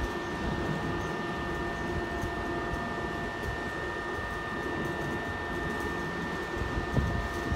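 Standing Southeastern electric multiple unit humming steadily from its onboard equipment, with several high, steady whining tones over the hum. A couple of low thumps come near the end.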